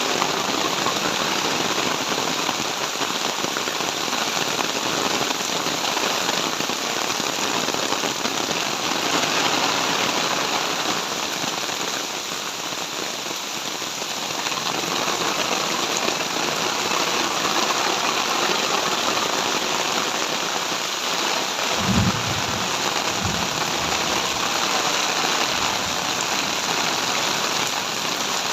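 Heavy tropical rain pouring steadily, a dense hiss of rain on surfaces. A few low thumps come about three-quarters of the way through.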